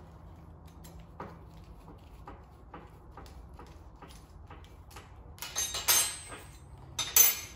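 Hand tools working the reusable AN fitting off a braided fuel hose: faint, scattered metallic ticks, then two louder metal clanks and scrapes, one a little past halfway and one near the end.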